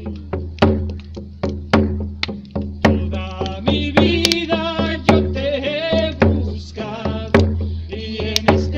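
A voice singing a chant to a drum beaten in a steady beat, a little under two strokes a second.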